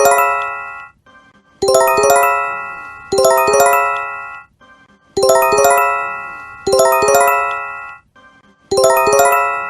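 Japanese emergency alert chime (J-Alert): a quick run of bell-like tones, struck twice about a second and a half apart, each ringing out and fading. The pair repeats about every three and a half seconds, with a short gap between pairs.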